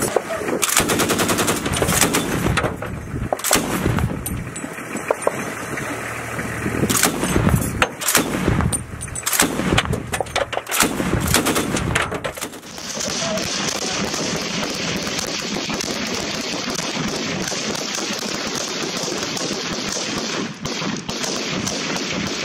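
Tripod-mounted, belt-fed heavy machine gun firing a series of short bursts for about twelve seconds. After that a steady rushing noise takes over.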